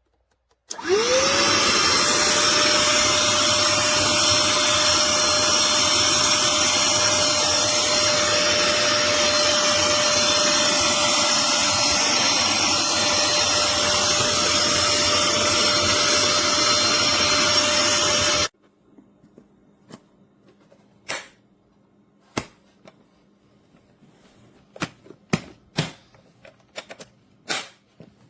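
Black+Decker Pivot cordless handheld vacuum switched on, its motor spinning up with a quick rising whine to a steady, loud run, then switched off abruptly about 18 seconds in. Scattered clicks and taps of the plastic vacuum being handled follow.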